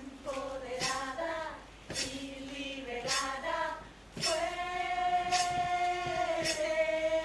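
Women's voices singing without accompaniment, moving through short phrases and then holding one long note in the second half.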